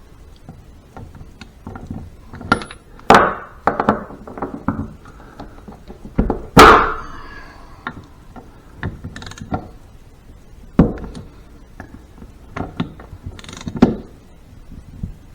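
A 1-inch socket and wrench tightening the shaft nuts on a Harley five-speed transmission: irregular metal clicks and clanks, the loudest about six and a half seconds in.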